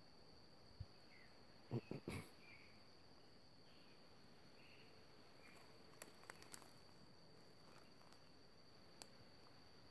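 Faint outdoor ambience dominated by a steady high-pitched insect drone. A few faint chirps sound here and there. A short cluster of knocks about two seconds in is the loudest moment.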